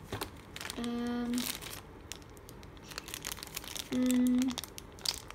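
Paper and cardboard packaging of a headphone box rustling and crinkling as it is handled, with crisp clicks and scrapes. Twice a person gives a short hummed "mm", the second about four seconds in and the loudest sound.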